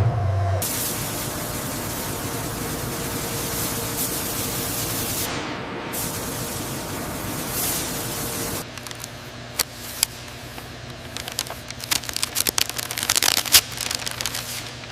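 Steady hiss of compressed air for about eight and a half seconds, cutting off suddenly, followed by scattered sharp clicks and a few short bursts of hiss.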